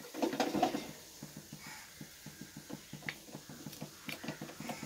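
Metal ladle stirring and turning cooked biryani rice in a large metal pot: a louder scooping scrape near the start, then soft scuffs of the rice and light clicks of the ladle against the pot.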